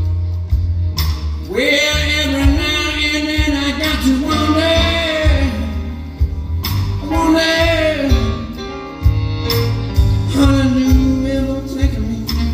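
Live blues band playing a slow blues, with a Hohner Marine Band Deluxe diatonic harmonica wailing long, bent notes over bass, drums and keys in three phrases.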